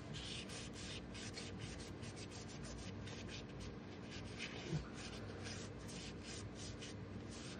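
Quick rubbing strokes, about three or four a second, as excess mortar is wiped off the moulded plastic brick walls of an HO-scale station kit, with a single soft knock about two-thirds of the way through.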